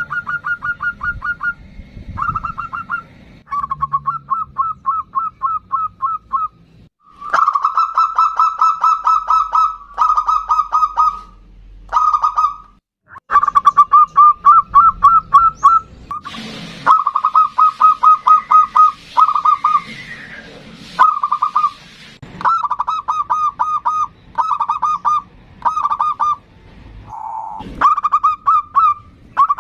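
Zebra dove (local Javanese perkutut) singing: phrase after phrase of rapid staccato cooing notes on much the same pitch, each phrase a second or two long, with short pauses between them.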